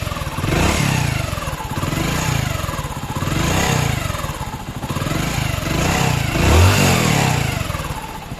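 Hero Splendor Plus's small single-cylinder four-stroke engine being revved up and down several times, with a loud whining 'saaye' noise on each rev. The whine comes from the timing chain being drawn far too tight by an overlong tensioner spring.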